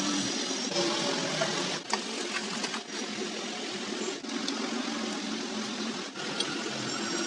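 Mixer grinder's electric motor running steadily, with a few abrupt short breaks.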